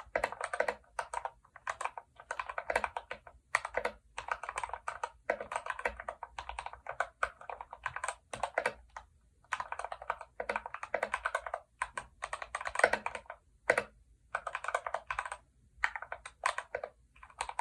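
Typing on a Yunzii YZ68 mechanical keyboard with Gateron Red linear switches and three layers of foam underneath: rapid keystrokes in bursts of a second or two, separated by short pauses.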